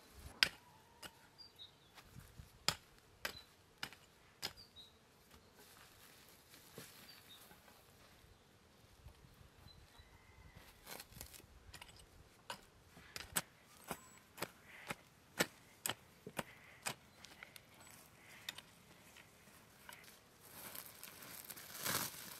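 Faint scattered sharp clicks and knocks of dry brushwood being handled, then a hoe chopping into garden soil in a run of strikes about one every half second to a second. Near the end there is a short rushing noise as soil is poured out of a sack.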